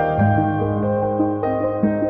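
Background music in a calm ambient style, with a low held bass note and slow melody notes over it.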